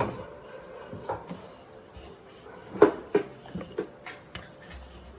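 Wooden rolling pin knocking and rolling on a round wooden board as dough is rolled thin and folded: a few scattered short knocks, the sharpest about three seconds in.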